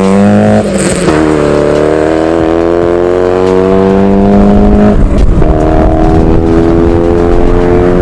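Car engine accelerating hard through the gears, its pitch climbing steadily with an upshift about half a second in and another about five seconds in.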